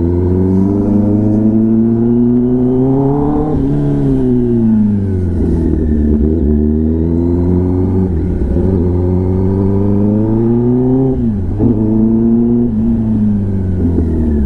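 Kawasaki ZX-10R inline-four sport bike running through an SC-Project titanium exhaust while being ridden, the engine note climbing in pitch under throttle, dropping off about four seconds in, climbing again and dropping sharply near the end before rising once more.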